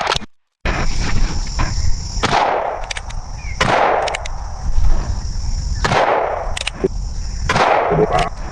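Four gunshots from a firearm, about one every one and a half to two and a half seconds, each followed by a short echoing tail, after a brief cut to silence near the start.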